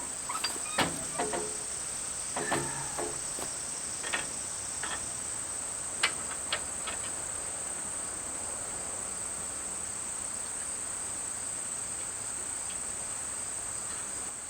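Steady high-pitched insect chirring that holds on one even pitch throughout, with a few scattered short clinks and knocks in the first half.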